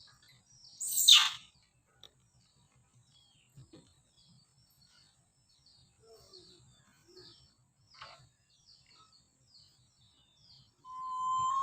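Faint, scattered high chirping calls, with one loud shrill call about a second in and a steady whistle-like call held near the end.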